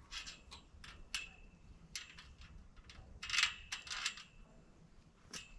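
Irregular light metallic clinks and taps of hardware against the metal tubing of a chicken run door frame, some with a short ring, the loudest cluster about three and a half seconds in.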